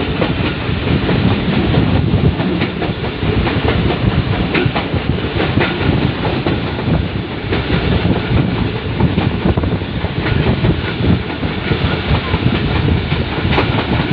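Passenger train running at speed, heard from aboard a carriage: a steady, loud rumble of wheels on rails, with irregular clicks as the wheels pass over the rail joints.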